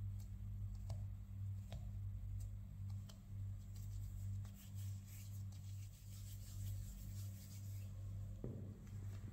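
Hands pinching soft bread dough shut over a filling and rolling it into a ball: faint rubbing and small clicks of fingers on the dough, over a steady low hum.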